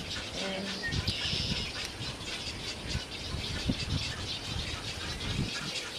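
A steady din of many birds calling at once: the chatter of a nesting egret colony.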